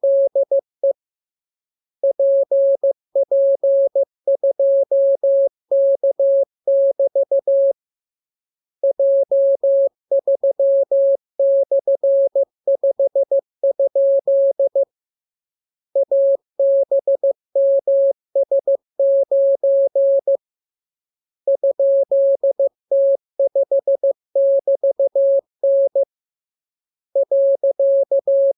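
Morse code receiving-practice tone: a single steady-pitched beep keyed on and off in dots and dashes, sent as runs of characters with pauses of about a second between them.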